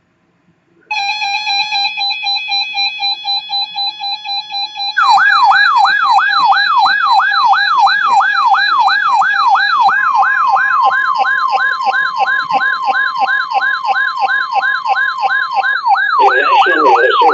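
Weather radio warning alert. After about a second, a pulsing alarm tone sounds for about four seconds. It gives way to a siren-like wail that falls in pitch and repeats about twice a second. Under the wail, NOAA Weather Radio's steady warning alarm tone sounds for about six seconds, and a broadcast voice starts near the end.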